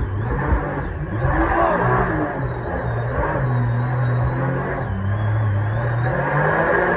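Supercharged mini jet boat engine running hard under heavy throttle as the boat pushes up through whitewater rapids. Its revs rise and fall, and a high whine glides up and down with it, over the constant rush and splash of white water.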